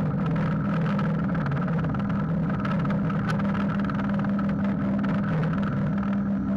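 Drill press running steadily, its motor giving a steady hum while the bit bores into a wig head and throws off chips.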